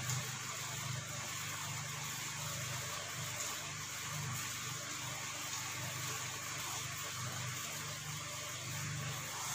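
Steady low hum with an even hiss over it, a constant background drone with no distinct events.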